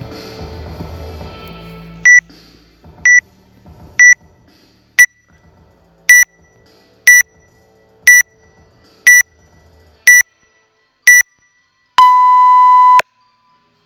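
Workout timer counting down to the start of a WOD: ten short high beeps, one a second, then one long lower beep of about a second that signals the start.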